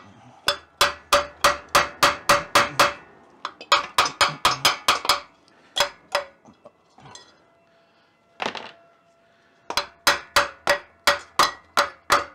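Hammer blows on a metal part of an air-cooled VW Beetle engine, struck in fast runs of about three hits a second. The runs stop briefly about three seconds in and again in the middle, where there are a few single hits, then start again near the end. The struck metal rings faintly after each blow.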